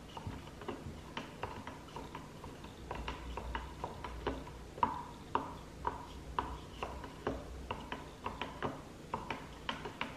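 A spoon stirring alginate molding mix in a plastic cup, knocking against the cup's sides in irregular clicks about two or three a second, each with a short ring.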